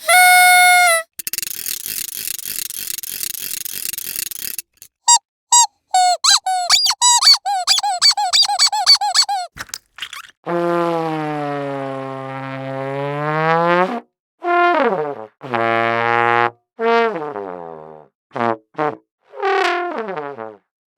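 A string of separate cartoon sound effects: a short high steady tone that drops at its end, about three seconds of buzzing rattle, a quick run of springy boings, then a long low wobbling honk and several shorter low honks that slide in pitch.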